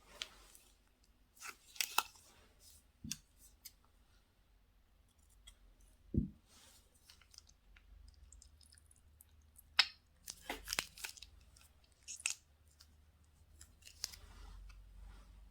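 Slime being handled and squeezed, possibly inside a plastic bag, making irregular sticky clicks and crackles in small clusters, with one dull thump about six seconds in.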